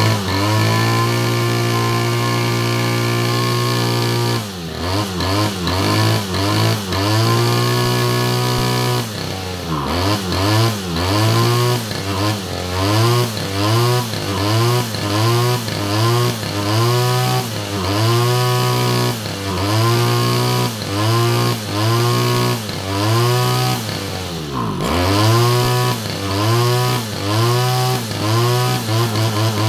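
Stihl backpack brush cutter's two-stroke engine, freshly tuned for more power, running at high revs. From about four seconds in it is revved up and down over and over, about once a second, each rev rising and falling in pitch.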